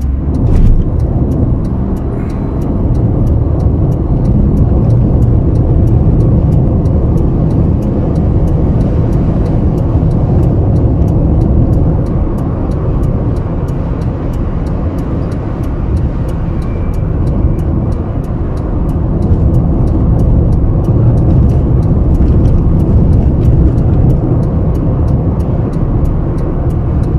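Car driving at highway speed, heard from inside the cabin: a steady, loud low rumble of engine, tyres and wind.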